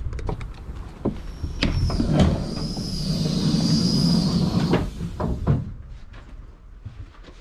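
Power-operated passenger door of a Chiltern Mk3 coach opening after its button is pressed: a motor hum with a high whine over it, clunks as it starts and as it stops after about four seconds, then a few light knocks.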